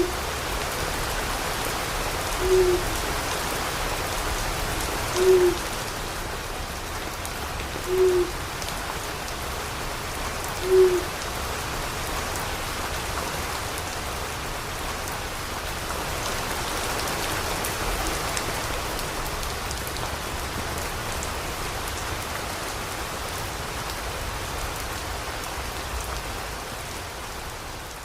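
Steady rain falling, with an owl giving short single hoots about every three seconds that stop about eleven seconds in. The rain fades out near the end.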